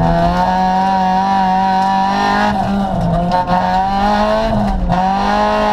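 Honda Civic rally car's engine held at high revs under hard driving, heard from inside the cabin, with two brief dips in pitch.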